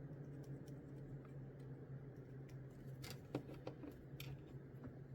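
Faint small clicks and taps of plastic model kit parts and hobby tools being handled, with a cluster of sharper clicks about three to four seconds in, over a steady low hum.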